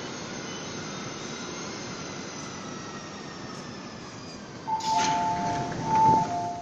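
MTR metro train running out of the platform behind the screen doors, a steady rumble and hiss. About five seconds in, a two-tone electronic signal sounds over it, alternating a higher and a lower tone.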